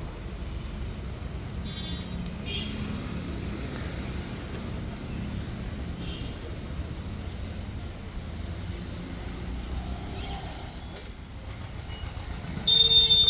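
Steady low rumble of traffic or a vehicle, with a short, loud, high-pitched tone near the end.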